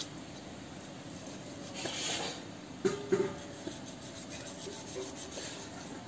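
A large kitchen knife scraping and cutting along a chicken leg, giving soft rubbing, rasping sounds, with a louder scrape about two seconds in. A brief low steady tone with two sharp knocks follows about a second later.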